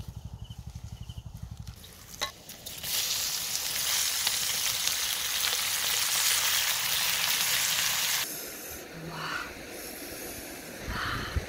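Gizzards frying in a hot wok with garlic and chili, a loud steady sizzle from about three seconds in that cuts off suddenly about eight seconds in.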